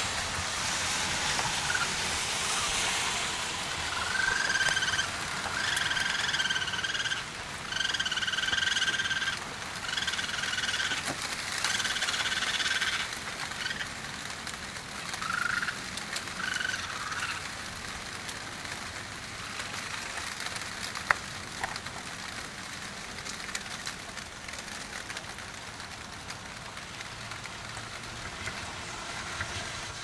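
Raccoon in a storm sewer calling: a run of about five drawn-out, steady-pitched high calls of about a second each, then a few shorter ones, over the steady hiss of rain.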